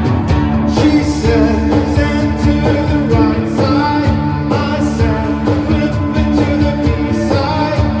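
Three-piece rock band playing live: steady drums, bass and echoing, reverb-heavy electric guitar, with a lead vocal singing over it from about a second in.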